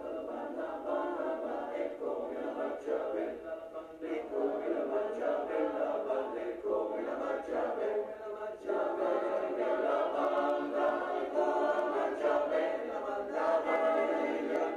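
Background music: a choir singing, in long phrases with short breaks about four and eight and a half seconds in.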